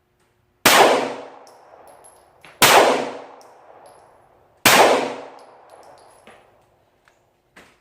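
Three shots from a Glock 19 Gen4 9mm pistol, about two seconds apart, each followed by a ringing decay.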